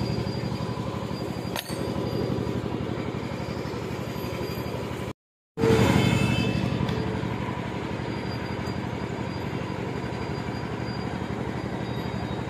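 A steady mechanical drone with a faint whine, with one click under two seconds in and a short total dropout about five seconds in.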